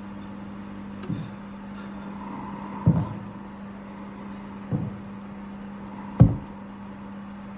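Suspense film soundtrack: a steady low drone with four deep booming hits spaced about a second and a half to two seconds apart, the last one the loudest.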